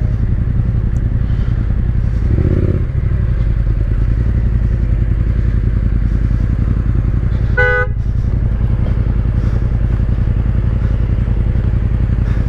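Motorcycle engine running with a steady low rumble, and a short horn toot about two-thirds of the way through.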